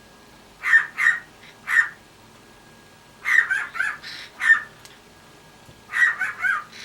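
Cockatiel imitating a dog's bark: short, harsh bark-like calls, three in the first two seconds, a quick run of them around three to four seconds in, and another quick run near the end.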